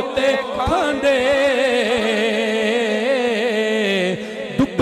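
A man's voice singing a naat, holding long, wavering notes without clear words over a steady lower held tone.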